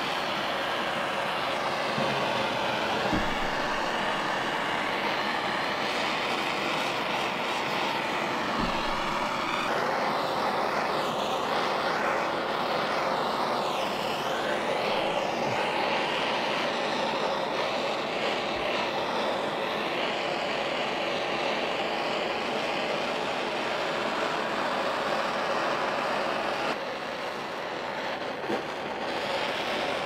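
Handheld gas torch burning with a steady rushing hiss as its flame scorches the edges of a carved wooden sign.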